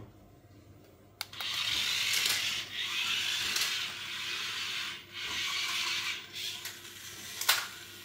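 Remote-control transforming toy car's small geared motors whirring and grinding, with its wheels scuffing on floor tile, as it moves and folds from robot back into car form. The whirring starts with a click about a second in and runs in several spells with short breaks, with another click near the end.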